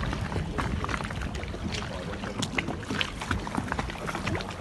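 Water lapping and splashing against a small boat's hull, many short crackling splashes over a low steady rumble.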